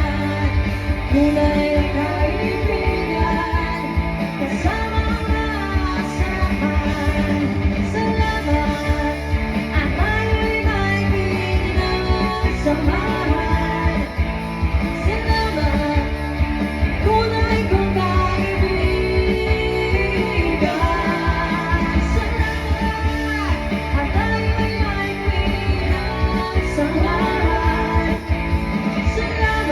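Live band playing a rock song, a singer's voice over guitar with a steady driving beat.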